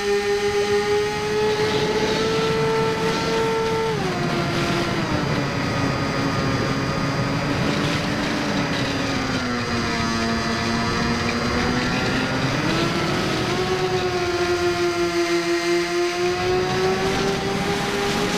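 Electric motor and propeller of a Firebird Stratos RC airplane, heard from the plane's onboard camera: a steady whine over a rush of air. The pitch drops about four seconds in as the throttle comes back, is lowest around ten seconds, then rises again about thirteen seconds in.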